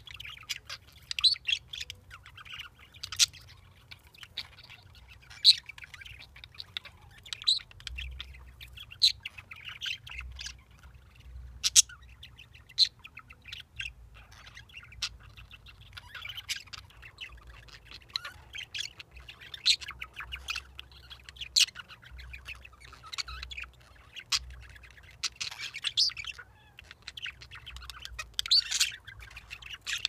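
English budgerigars chirping and chattering in a steady stream of short, sharp calls, a few of them much louder than the rest.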